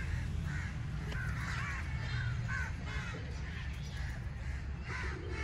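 Birds calling in many short calls, about two or three a second, with a brief lull after the middle, over a steady low rumble.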